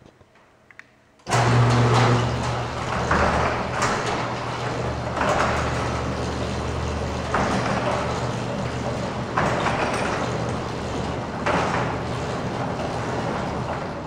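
Commercial belt-and-pulley garage door opener starting suddenly about a second in and running: a steady electric motor hum under mechanical drive noise that swells about every two seconds, dying away near the end.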